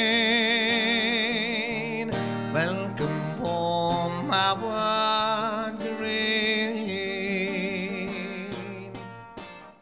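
Live folk song: a male singer holds a long wavering note over acoustic guitar, then the strummed guitar plays on and the music fades out near the end.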